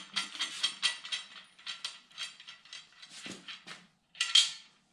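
Irregular metal clicks, a few a second, as the cam bearing installer tool is backed off from a freshly pressed cam bearing in a 454 big-block's cam tunnel, with one louder clack near the end.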